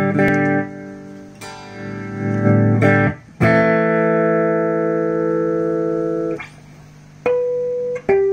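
Guitar played through a Toa EMX-10 echo mixer: a handful of strummed chords and single notes, each ringing on, with one long chord sustained for about three seconds in the middle.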